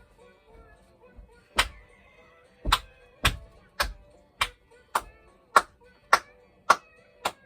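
A series of sharp, evenly spaced knocks, about two a second, starting about a second and a half in, over faint music.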